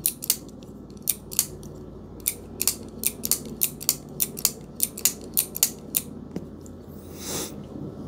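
Kizer Sheepdog Mini button-lock folding knife being flicked open and dropped shut over and over: a quick run of sharp metallic clicks, about three a second, as the blade snaps into lock and the button releases it. The clicking stops about six seconds in, and a short rustle follows.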